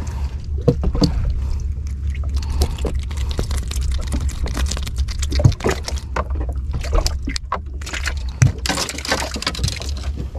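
Sounds aboard a small wooden sampan at sea: a steady low rumble with scattered knocks and clatter, and a louder rushing hiss near the end.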